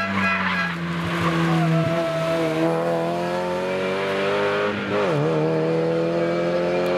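MG F rally car's four-cylinder engine revving hard under acceleration, its pitch climbing in the first couple of seconds, dipping sharply about five seconds in, then rising again as the car pulls away.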